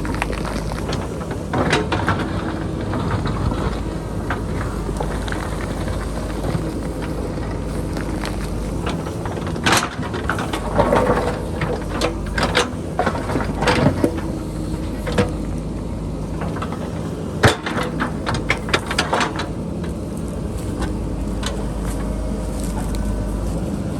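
JCB backhoe loader's diesel engine running steadily under load, with scattered knocks and clanks of the bucket working through rock and boulders, thickest between about ten and twenty seconds in.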